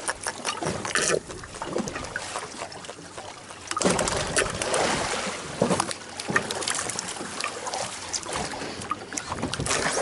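Seawater slapping and splashing against the hull of a drifting fishing boat, coming in irregular surges.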